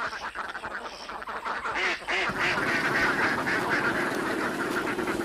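A flock of ducks quacking, many calls overlapping, growing denser about two seconds in.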